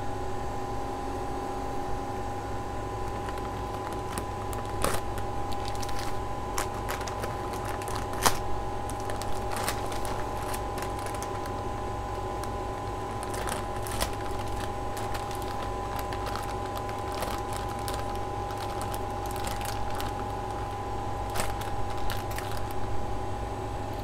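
Plastic mushroom grow bag crinkling, with scattered small clicks, as gloved hands handle and open it. Under it runs a steady hum with a high whine.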